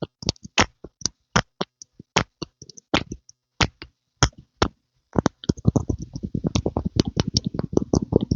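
Close-miked ASMR popping sounds: sharp single pops at an uneven pace, then about five seconds in, a fast run of fuller, lower pops, several a second.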